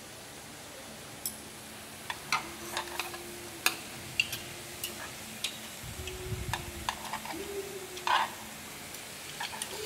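Chopsticks clicking and scraping against a hot tabletop grill pan and bowls as beef and vegetables are picked up: scattered sharp clicks, loudest about four seconds in and again near the end. Under them, a faint steady sizzle of food cooking on the pan.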